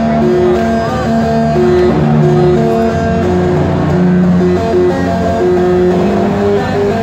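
Hardcore electronic dance music from a live DJ set, played loud over a large arena sound system. A melody of held notes moves step by step over a continuous heavy bass.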